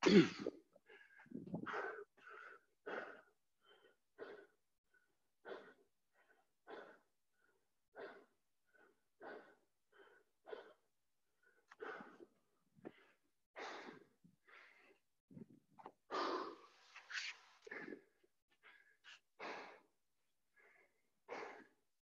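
A man breathing hard from exertion, in short, sharp exhales and gasps repeating about once a second, the strongest right at the start.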